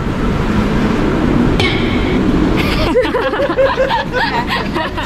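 City street noise with a steady traffic hum. From about three seconds in it gives way to a burst of rapid, repeated laughter.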